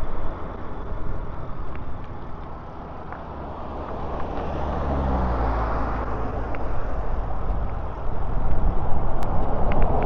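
Road traffic: a car passes on the road alongside, its sound swelling and falling in pitch around the middle, over a steady low rumble.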